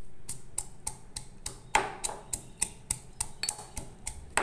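Stone pestle pounding green chillies in a stone mortar: a steady run of sharp knocks, about three a second.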